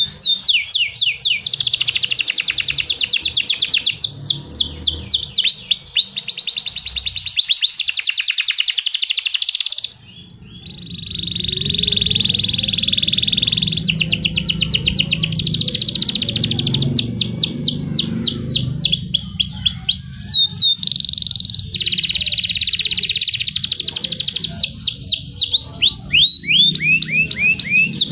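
Domestic canaries singing in turn: long runs of very fast trills that sweep down in pitch over and over. About ten seconds in the song breaks off at a cut, and a second canary takes over with a steady held note for a few seconds before going back to rapid trills.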